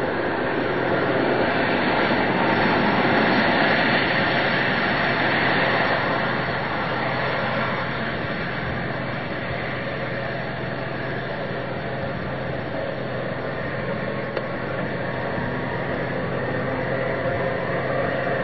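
Rushing vehicle noise on a highway, swelling to a peak about two to six seconds in and then settling lower, with no clear engine note.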